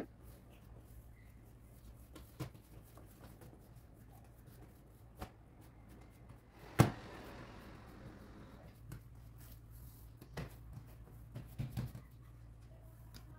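Scattered taps and knocks of kitchen work, with one sharp knock about seven seconds in followed by a short hiss, and a few soft clatters near the end.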